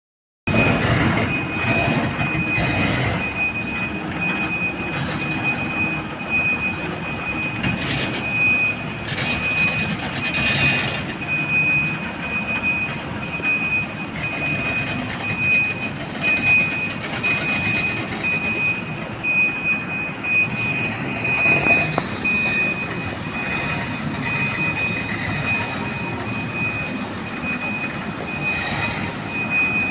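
Heavy diesel engines of a hydraulic excavator and a dump truck working, with a back-up alarm giving repeated high beeps at a steady pace. A few sharp knocks come around the middle.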